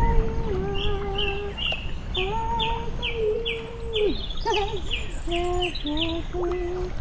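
A slow melody of held notes that step up and down in a pure, whistle-like tone, with a run of quick high falling chirps, about three a second, above it in the first four seconds.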